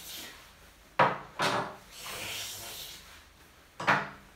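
Rasping, rubbing noises: two sharp-starting rasps, about a second in and near the end, each fading over about half a second, with fainter rasping between them.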